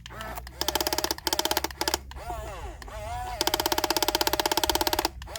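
Small electric motors and gears of an RC excavator: spells of rapid, even rattling, about 18 clicks a second, broken by short pauses, with whines rising and falling in pitch between spells.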